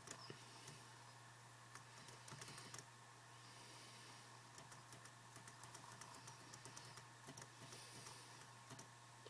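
Faint typing on a computer keyboard: light, irregular key clicks, over a low steady hum.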